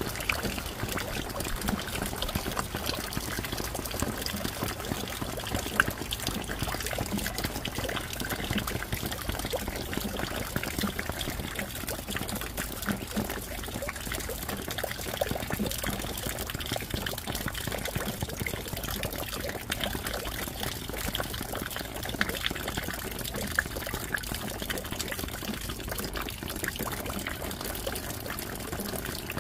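Steady rain falling, with water trickling and pouring and many small drips; a few louder drops stand out, one about six seconds in.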